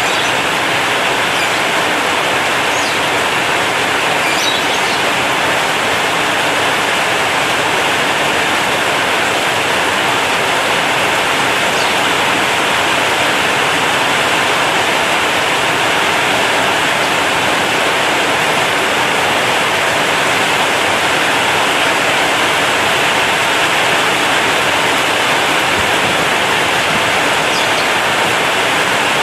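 Heavy rain falling on a corrugated zinc roof: a loud, steady, dense hiss of water that never lets up.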